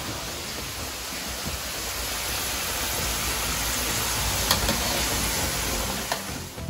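Potato chips deep-frying in hot oil: a steady sizzle that grows gradually louder, with two short clicks in the second half.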